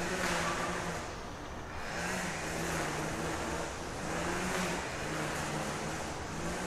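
Vehicle noise: a steady rumble with a low hum that fades in and out every second or so.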